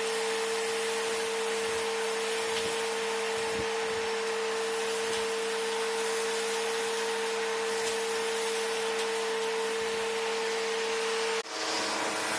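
Vacuum cleaner motor running steadily with a constant whine over its airflow noise. Near the end the sound dips for a moment and carries on with a different whine.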